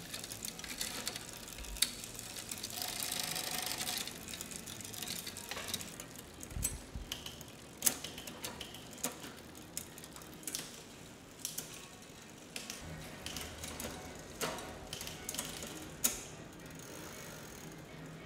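Bicycle being worked on in a repair stand: the rear wheel's freewheel ticking as it spins, with irregular sharp clicks from the chain, cassette and rear derailleur.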